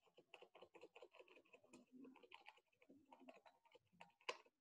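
Faint, rapid key presses on a computer keyboard, about eight to ten a second, with one louder click near the end. The presses are repeated undo keystrokes stepping a drawing back to a blank table.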